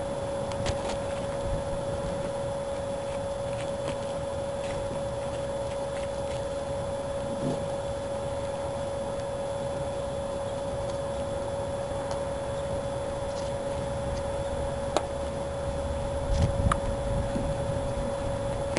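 A steady hum with a low rumble behind it, with a few faint clicks and light taps from a hand tool pressing vinyl roof material into the car's trim channel, a sharper click and a few taps near the end.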